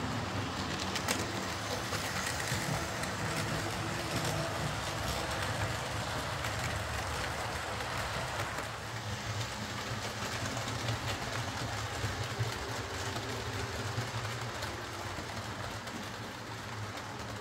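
Hornby Class A4 00-gauge model locomotive running along the track with its coaches: a steady rumble and whine from its tender-mounted ring-field motor, with scattered sharp clicks from the wheels on the track, easing a little toward the end. The owner puts the motor's whine down to wear in the gears.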